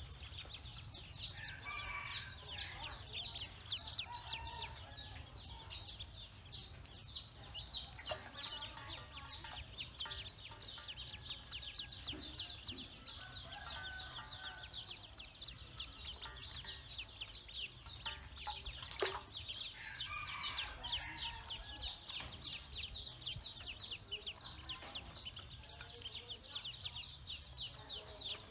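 A brood of Pekin ducklings peeping continuously, a fast stream of short, high, falling peeps, with a few lower clucking calls mixed in at intervals and a single sharp click near two-thirds of the way through.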